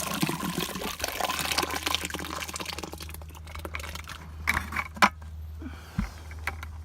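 Very runny mud slurry poured into a narrow augered soil hole around a buried sensor, splashing and sloshing, dying down after about three seconds, followed by a few sharp knocks.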